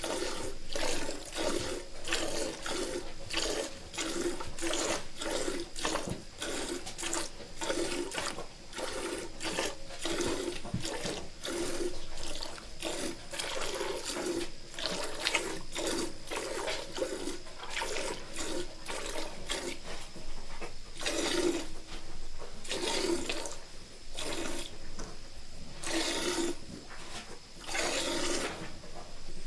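Milk squirting into a pail as a cow is milked by hand, a rhythmic run of short hissing squirts, about two a second, spacing out to one every second or two near the end.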